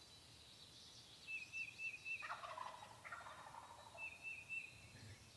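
A wild turkey gobbler gobbling once, about two seconds in, a rough rattling call lasting about a second; the hunter calls it a real bad gobble. A songbird repeats a short high phrase every few seconds.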